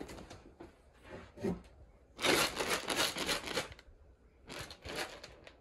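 Dry cat kibble rattling in a clear plastic container as it is shaken, in a longer burst about two seconds in and a shorter one near the end: the rattle used to call a cat to its food.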